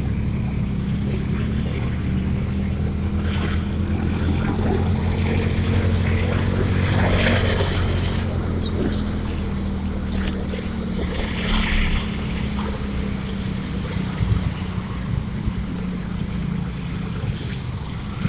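Motorbike engine running steadily while riding over a rough road, with road and wind noise; the engine note swells a little about seven seconds in.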